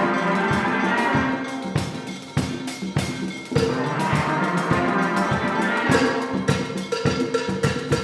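Steel band playing: many steelpans sounding struck, ringing notes together over a steady percussion beat.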